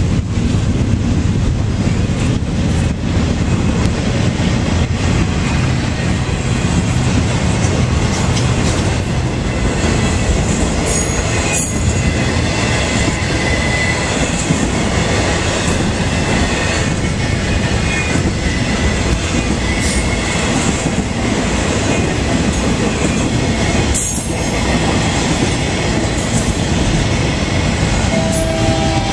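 Intermodal train of highway trailers on flatcars passing at close range: a steady, loud rumble of steel wheels rolling on the rails. Short, thin high-pitched wheel squeals come in here and there, mostly about a third of the way in.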